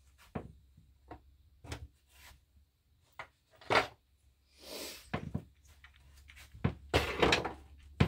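Plastic housing and metal parts of a Holzfforma G366 chainsaw being handled and fitted together by hand: irregular clicks and knocks, with a sharper knock about four seconds in, a brief sliding rub just after it, and a quick cluster of knocks near the end.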